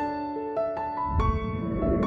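Background piano music, single notes played one after another in a gentle melody. Just after a second in, a low rumbling noise rises under the notes.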